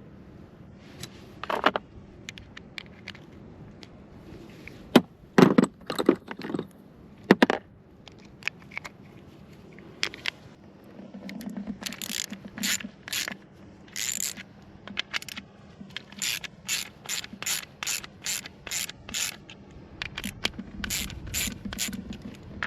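Hand-tool work: a few sharp knocks, then runs of short rasping, ratchet-like strokes at about two a second.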